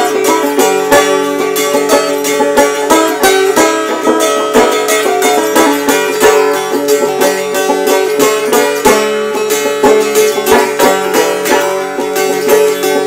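Banjo and mountain dulcimer playing an old-time folk tune together: quick plucked banjo notes over a steady drone note.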